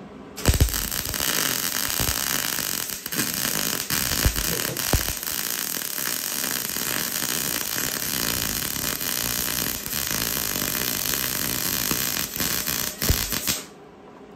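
Wire-feed (MIG) welding arc on galvanized steel Unistrut channel: the steady crackling hiss of one continuous weld bead, with a few louder pops. It starts about half a second in and cuts off sharply about a second before the end.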